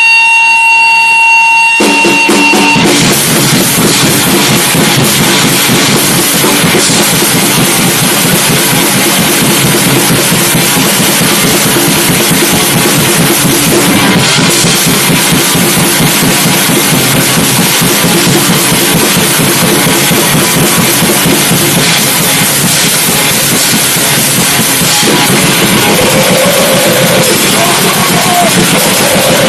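A steady high tone holds for about two seconds, then a live band comes in loud and dense with drum kit and guitar, a harsh noisy rock/grind wall of sound that carries on without a break.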